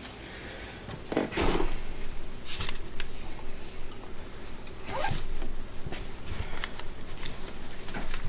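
Zipper on a fabric ratchet-strap storage bag being pulled in several short strokes, starting about a second in, with handling noise from the bag and straps.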